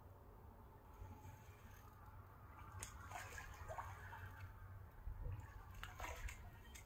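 Faint splashing and dripping of water with a few light clicks over a low steady rumble, as a hooked shad is reeled in to the bank.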